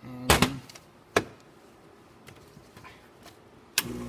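Lelit espresso machine: a short burst of its pump's steady buzz, a couple of sharp knocks, then near the end a click as the pump switches on and buzzes steadily to dispense water.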